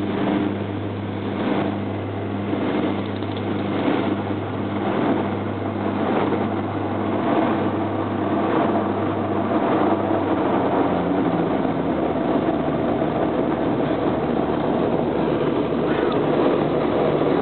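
Turboprop airliner rolling on the runway after landing, heard from inside the cabin: a steady low propeller drone over engine and airflow noise, with a faint knock roughly every second during the first ten seconds. About two-thirds of the way in the drone's pitch shifts and it gets a little louder.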